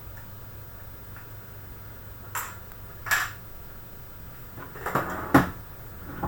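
Small metal screws and PC hardware being handled: about five short metallic clinks and knocks, the loudest near the end.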